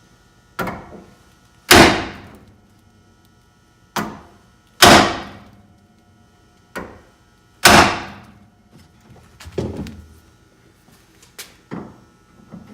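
Hammer blows on a manual impact screwdriver, three hard strikes about three seconds apart, each ringing out and each preceded by a lighter tap, then a few lighter knocks near the end. Each blow turns the bit a little, working a rusted Phillips screw on a VW bus door loose.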